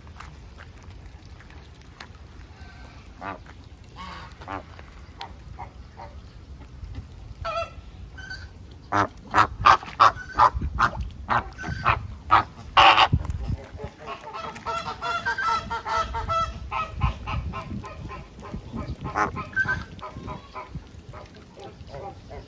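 A flock of birds honking: a few scattered calls at first, then a loud run of separate honks, then many birds calling over one another.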